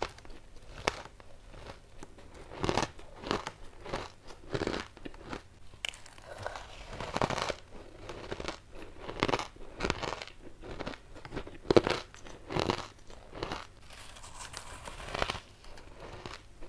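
Crushed ice being bitten and chewed: a run of crisp crunches, some louder than others, with one sharp loud crunch about twelve seconds in.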